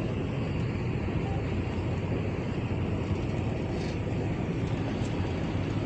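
Steady low rumble on board a sightseeing boat under way.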